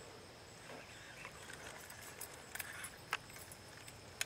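Quiet outdoor ambience: a faint, steady high insect hum, with a few faint sharp clicks in the second half.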